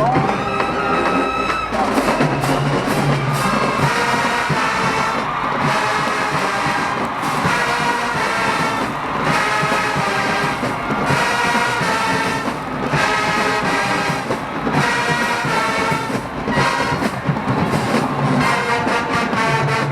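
Marching band brass section playing loud, full chords with percussion underneath, in punchy, repeated accented phrases.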